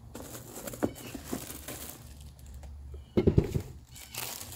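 Cardboard box flaps and a plastic bag rustling and crinkling as a new baseball glove is pulled out of its packaging, with a dull thump about three seconds in.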